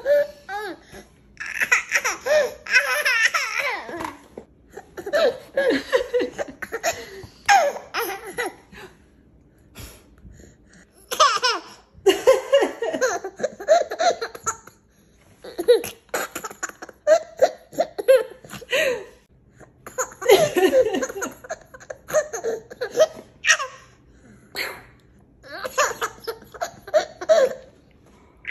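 Toddler laughing hard in about seven bouts, with short pauses between them.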